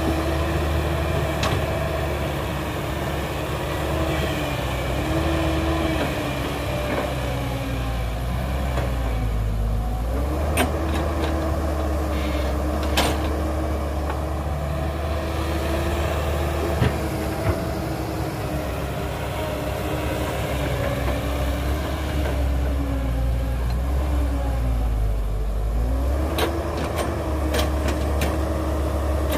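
Heavy diesel engine of construction machinery running steadily, its pitch sagging and recovering twice. There are a few sharp knocks scattered through.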